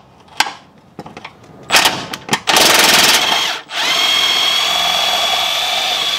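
A few clicks, then a power impact wrench hammering for about a second on the upper shock-absorber bolt of a Corvette's rear suspension, breaking it loose. After a brief pause the wrench runs steadily with a high whine for the last couple of seconds.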